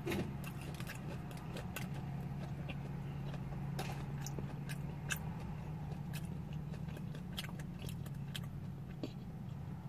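A person chewing fried snack food, with scattered small wet mouth clicks at irregular moments, over a steady low hum.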